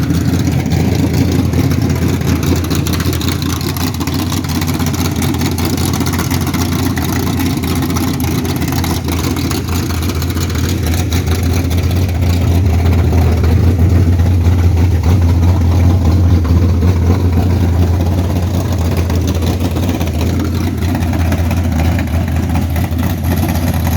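1969 Camaro's 355 small-block Chevy V8, with a Comp Cams Mutha Thumpr cam, Holley carburettor and full-length stainless headers, running steadily at idle. It gets a little louder for a few seconds past the middle.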